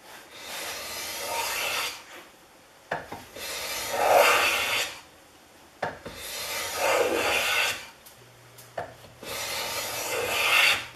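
Stanley S18 steel block plane taking four passes of about two seconds each along the edge of a walnut board, its iron cutting shavings with a rasping swish. A short knock comes before most passes as the plane is set down on the wood. The plane cuts the walnut without a problem.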